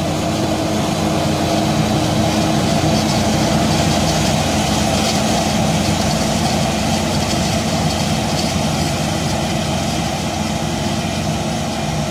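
John Deere 9900i self-propelled forage harvester at work chopping maize: its 12-cylinder Liebherr engine running steadily under load, mixed with a tractor engine running alongside.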